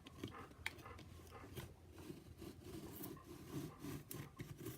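Faint handling of a book and paper: soft scraping with scattered small ticks as the book is turned and its pages are moved.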